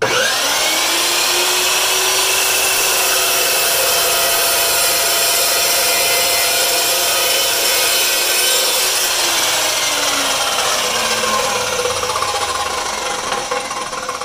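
Evolution EVOSAW380 15-inch dry-cut metal chop saw starting up with a rising whine and its steel-cutting blade sawing through a piece of Trex plastic-composite decking. About nine seconds in, the motor is let off and the blade winds down with a falling whine.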